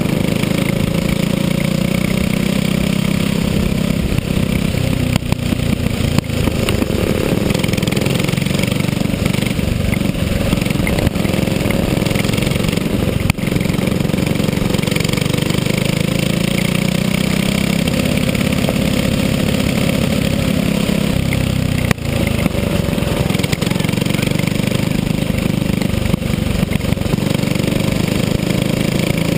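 Racing kart's engine heard from onboard, running hard and continuously. Its pitch drops and climbs back about six seconds in and again about twenty-one seconds in, as it slows for corners and accelerates out.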